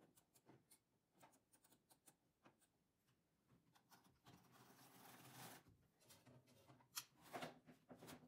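Faint scattered clicks and a brief rustle about halfway through, from a hand handling a mid-gauge knitting machine's carriage and controls. A few sharper clicks come near the end.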